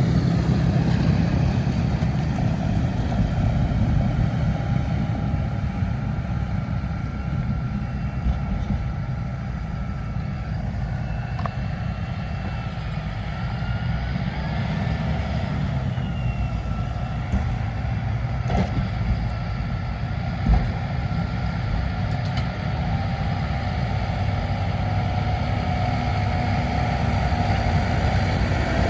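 A tractor's diesel engine running steadily, with a faint whine above it and one sharp knock about two-thirds of the way through.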